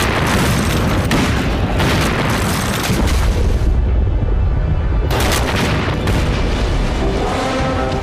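Film sound effect of a ship exploding at sea: a sudden loud explosion boom that rumbles on, with a second blast about five seconds in. Dramatic music plays under it, its tones coming forward near the end.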